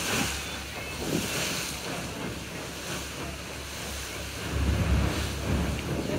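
Sea waves washing, with wind buffeting the microphone; the low wind rumble is strongest a little past the middle.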